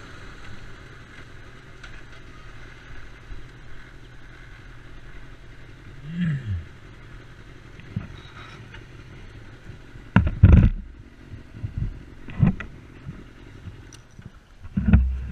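Honda CBR600F inline-four motorcycle engine idling low at a standstill, dropping away with a short falling note about six seconds in as it is shut off. Later come a few loud knocks and thumps from handling the bike.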